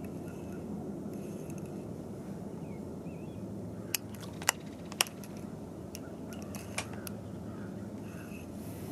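Low steady lapping of lake water around the kayak, with a handful of sharp metallic clicks from the fishing rod and reel being handled as the line is lifted out of the water. The two loudest clicks come about halfway through, half a second apart, and one more follows a couple of seconds later.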